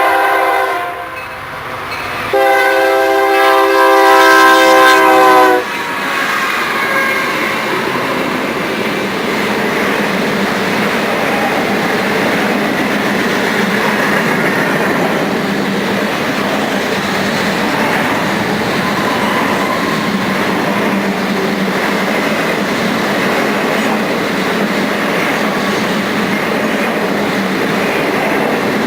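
Freight locomotive air horn sounding a short blast and then a long one, a steady multi-note chord, followed by the train passing: a long, steady rumble and clatter of freight cars rolling over the rails.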